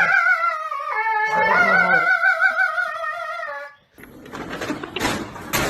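A dog howling in long, wavering, pitched notes that cut off suddenly about four seconds in, followed by noisy room sound.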